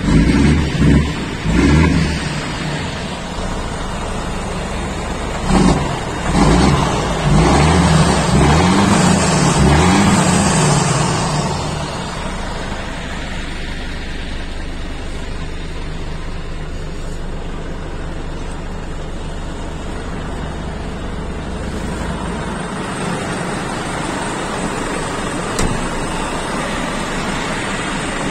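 Volvo FH13 500's 13-litre straight-six diesel running through an open exhaust system, blipped a few times quickly, then revved in longer pulls held high for a few seconds before dropping back to a steady idle.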